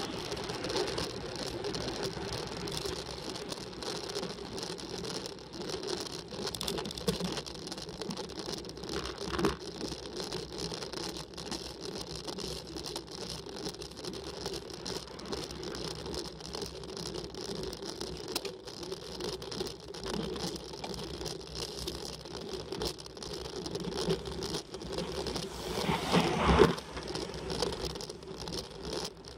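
Road bicycle ridden up a steep climb: steady rattling and drivetrain and tyre noise from the bike. Near the end there is a sharper, louder jolt.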